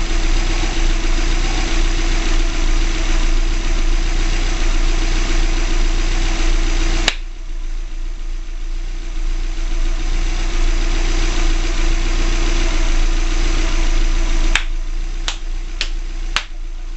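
A freshly rebuilt 2005 Subaru Legacy GT's 2.5-litre turbocharged flat-four idling steadily with its hood open. A sharp click about seven seconds in is followed by a sudden drop in level that comes back up near the end, where a few more sharp clicks sound.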